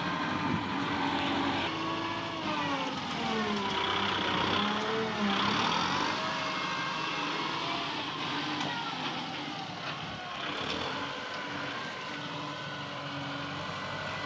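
Kubota tractor's diesel engine running, its pitch rising and falling as the front loader lifts and carries a bucket of soil.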